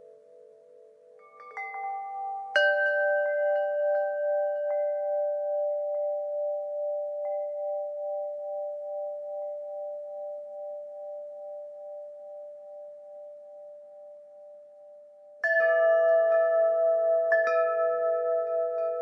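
Wind chimes: a few soft strikes, then a louder one about two and a half seconds in, the tones ringing on with a slow pulsing and fading away over about thirteen seconds. Near the end a fresh cluster of chimes strikes together and rings out.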